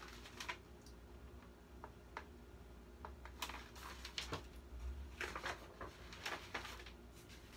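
Paper rustling as the pages of a picture book are handled and turned, in several short rustles with small taps.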